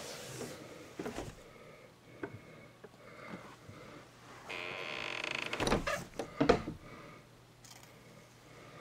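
Interior door creaking on its hinges for about a second as it is pushed, followed by a few knocks and bumps, the loudest about six and a half seconds in.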